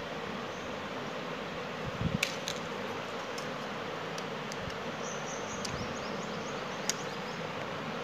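Steady background noise, with a few light taps as a ruler and a thin wooden strip are handled, and the faint scratch of a pen marking the strip about two thirds of the way through.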